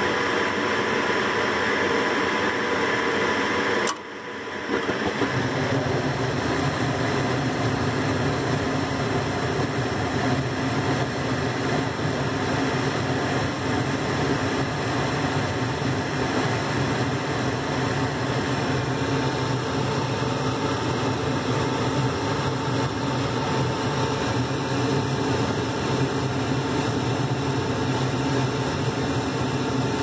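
Lennox G40UH gas furnace with its draft inducer motor running steadily. About four seconds in, the gas valve clicks open and the burners light at once; from then on a steady low rumble of the burner flames runs under the inducer's noise.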